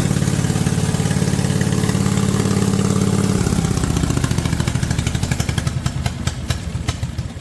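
Hustler Raptor SD zero-turn mower engine running steadily, then about three and a half seconds in it drops in pitch and slows, chugging down with separate firing pulses and falling away near the end.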